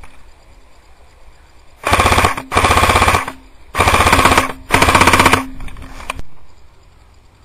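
Airsoft electric rifle firing four short full-auto bursts in two quick pairs, starting about two seconds in, each a rapid, even clatter of shots lasting under a second.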